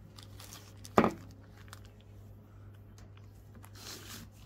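A single sharp knock about a second in, then faint rustling of plastic parts bags as new seals and gaskets are handled, over a steady low hum.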